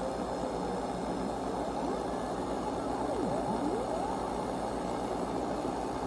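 NorCal 40B kit receiver running without its crystal filter: a steady hiss of band noise out of the speaker, with a station's beat note sliding in pitch as the tuning knob is turned. About halfway through, the tone falls down through zero beat and climbs back up the other side, a sign of the very broad IF with no crystal filter fitted.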